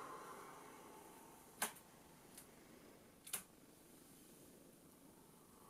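Near silence: quiet room tone, broken by two short, sharp clicks about a second and a half apart, with a fainter tick between them.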